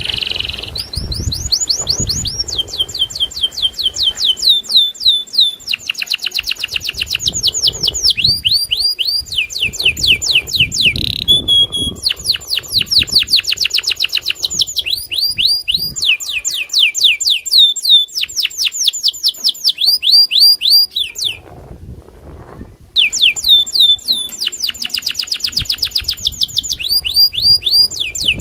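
Domestic canary of the Indonesian 'loper' type singing loudly in long phrases of rapid, evenly repeated falling whistled notes, several per second, switching from one trill to the next. The song breaks off for about a second and a half about three-quarters of the way through, then starts again.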